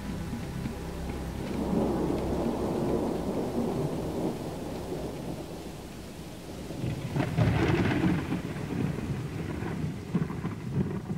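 Thunderstorm: thunder rumbling over steady rain, with a louder peal that opens with a sharp crack about seven seconds in.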